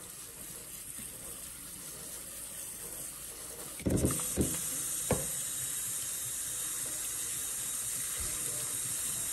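Kitchen faucet running steadily onto riced cauliflower in a metal mesh strainer set in a stainless-steel sink. A few knocks come about four seconds in, and after them the water runs louder.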